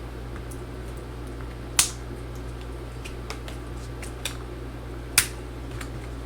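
Small sharp clicks and ticks of hand tools against a MacBook Pro's glued-in battery and aluminium case while the battery is being pried out. There are two loud clicks about three and a half seconds apart and a few fainter ticks between, over a steady low hum.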